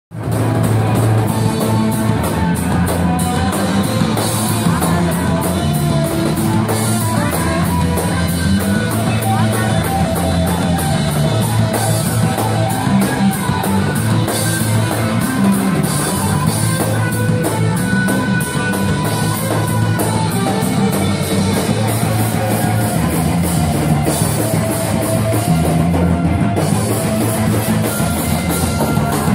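Live rock band playing loud: a drum kit with a quick, steady cymbal beat over electric guitar, without a break.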